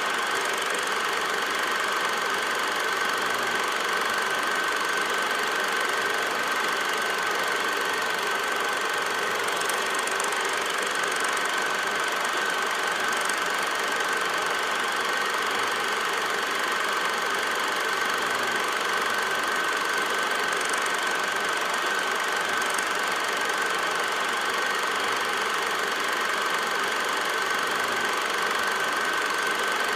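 A film projector running: a steady mechanical whir and clatter with a constant high whine, unchanging throughout.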